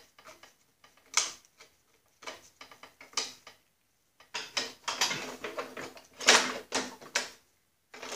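Metal parts of a Snapper rear-engine rider's chain case and frame clicking and clanking irregularly as they are handled and fitted together by hand, with a sharp click about a second in and a busier run of knocks in the second half.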